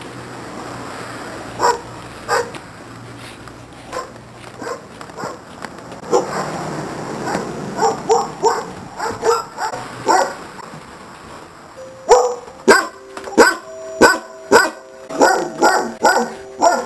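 A dog barking in short sharp barks, scattered at first, then a steady run of loud barks at about two a second from about twelve seconds in.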